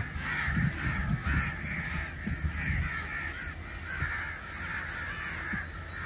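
A flock of crows cawing continuously, many calls overlapping at once.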